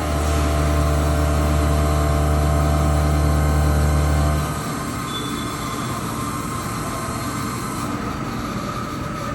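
CNC milling machine running: a loud, steady hum with a fixed pitch for about four and a half seconds, then it drops to a quieter, rougher machine hum.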